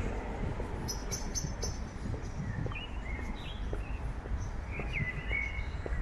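Songbirds chirping in the trees: a quick run of high notes about a second in, then a few short, sliding chirps later on. A steady low rumble runs underneath.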